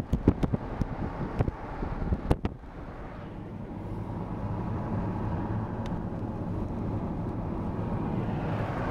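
Steady road and engine rumble heard inside a moving car's cabin, with a few knocks in the first couple of seconds before it settles into an even drone.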